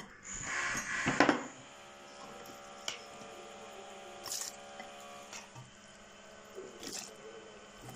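A metal spoon scoops cooked peppers from a steel pot and drops them into a plastic funnel on a glass jar. A scraping, sliding noise fills the first second or so, then a few light clinks and taps sound over a faint steady hum.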